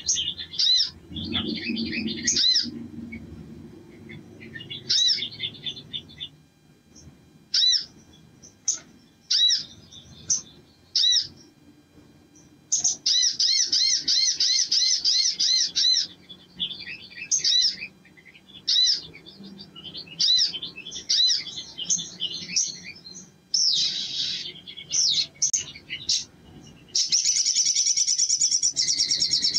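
Male olive-backed sunbird singing: sharp high chirps and short phrases, breaking into fast trilled runs about halfway through and a louder, denser trill near the end, the excited full song bird keepers call ngleper.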